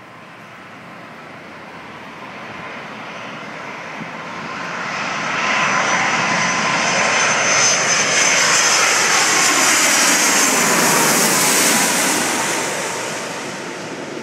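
Twin-engine jet airliner on low final approach passing overhead. The engine noise and whine grow steadily louder and stay loudest for about six seconds as it passes, then fade while the whine falls in pitch.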